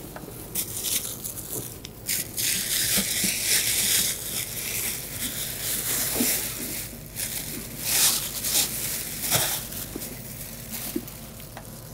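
Plastic packaging crinkling and rustling in irregular bursts as it is handled and pulled off a rolled-up inflatable paddleboard.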